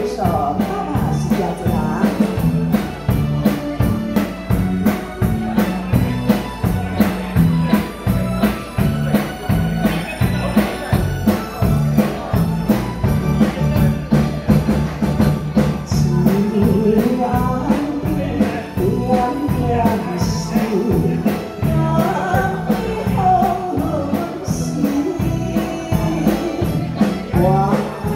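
Live band of drum kit, electric bass, electric guitar and keyboard playing a Taiwanese Hokkien pop song with a steady beat; a melody line comes in over it about halfway through.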